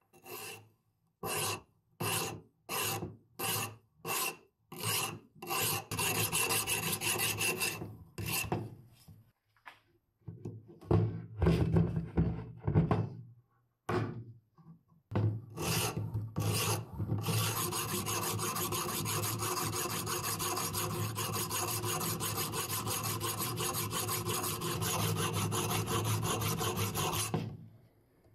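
Abrasive sharpening stone on a guided-rod jig scraping along the steel of an old mortising axe. It starts as separate strokes about twice a second. After some knocking and scraping in the middle, it turns into fast, continuous back-and-forth rubbing for about ten seconds and stops abruptly near the end.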